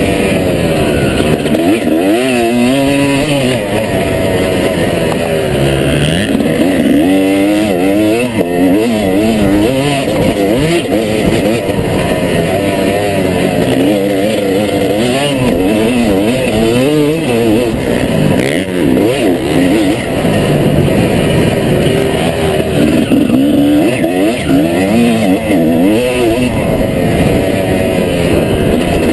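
Honda 250 motocross bike's engine being ridden hard through sand, its pitch rising and falling constantly as the throttle is worked on and off.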